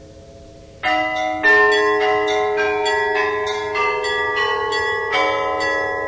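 Church bells ringing: several bells of different pitches struck in a quick run, about three to four strikes a second. The run starts about a second in over the lingering hum of an earlier strike.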